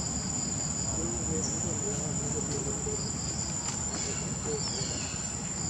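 Steady, high-pitched drone of insects, over a low, even rumble.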